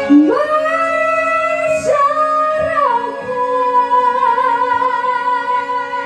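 A high singing voice slides up into long held notes, steps up about two seconds in and back down a second later, then holds a long note with slight wavering. Underneath is a steady held tone from the Banyuwangi gamelan-style orchestra.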